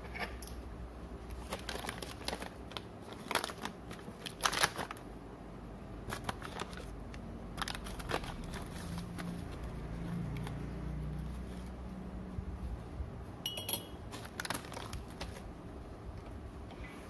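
A plastic instant-coffee pouch crinkling as it is handled while a metal spoon scoops coffee from it, with scattered clicks and taps. Near the end a spoon clinks briefly against a ceramic mug, ringing for a moment.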